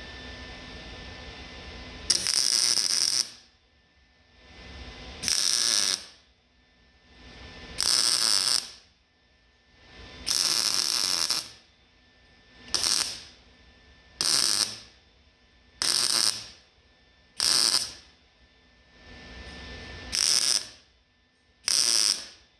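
MIG welder arc crackling and sizzling in about ten short bursts as tack welds are laid one after another around a steel patch plate in a truck frame. The early bursts last about a second, and the later ones are quicker, about half a second each.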